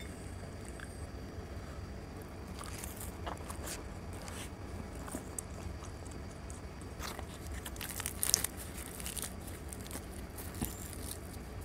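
Close-miked chewing of luchi (puffed fried bread) soaked in chicken curry: soft wet crackles and mouth clicks that come in clusters, the loudest about eight seconds in, over a low steady hum.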